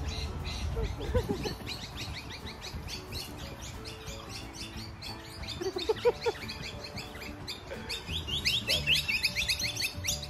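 Birds chirping in quick, repeated calls that grow busier near the end, with music playing softly underneath.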